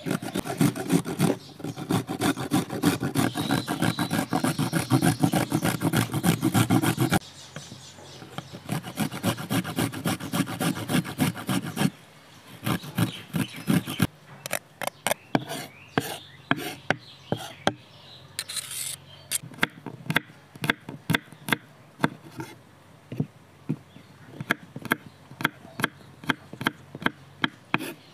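Garlic rubbed fast on a flat metal hand grater against a wooden cutting board: rapid scraping strokes, loudest for the first several seconds, then quieter. From about halfway, sharp knocks about twice a second from a knife chopping on the wooden board.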